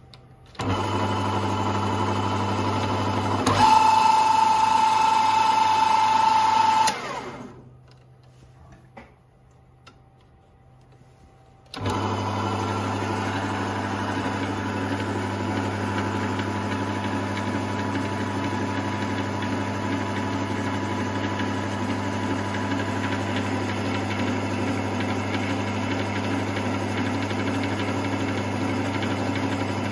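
Emco Emcomat 7 lathe running under its single-phase electric motor: the drive starts just after the beginning, and a few seconds later a louder, high gear whine joins. The machine then cuts off and winds down, and after about four seconds of quiet it starts again and runs steadily with a low hum and gear noise.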